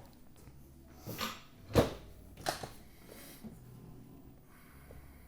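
Spinal joints cracking during a chiropractic adjustment: a short rustle of movement, then one sharp loud crack and a smaller crack about two-thirds of a second later.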